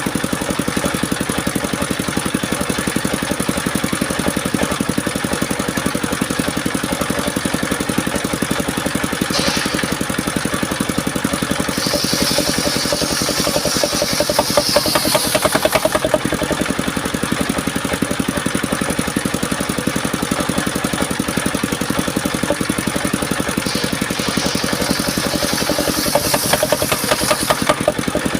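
An engine-driven circular saw rig runs steadily. Twice, about a third of the way in and again near the end, a high-pitched cutting noise rises over the engine for a few seconds as the saw blade cuts through mahogany.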